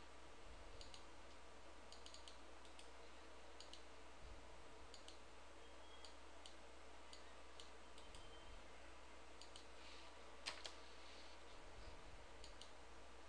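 Faint computer mouse clicks, scattered and some in quick pairs, over a low steady hum; the loudest pair comes about ten and a half seconds in.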